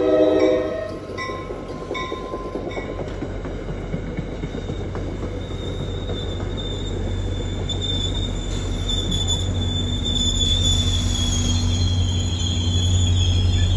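The tail of an NJ Transit train's horn cuts off about a second in. Then Comet passenger coaches roll over the grade crossing, with a steady high wheel squeal and a low rumble that grows louder near the end.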